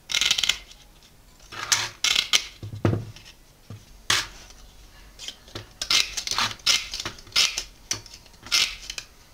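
Aviation snips cutting a thin sheet of gold alloy into small pieces: a series of short, sharp metallic snips at an irregular pace, about a dozen in all, some coming in quick pairs.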